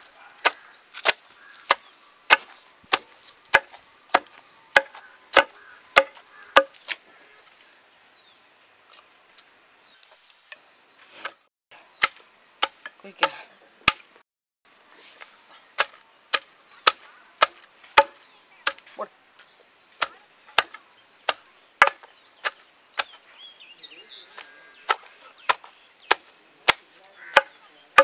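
Wooden pestle pounding pieces of raw chicken in a stone mortar: a steady beat of sharp knocks, a little under two a second, that thins out and pauses for a few seconds midway before resuming.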